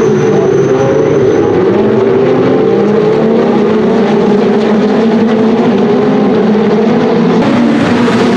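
A pack of Ferrari 488 Challenge race cars, each with a 3.9-litre twin-turbo V8, running together through a hairpin, their engine notes overlapping and shifting in pitch. The sound changes abruptly near the end.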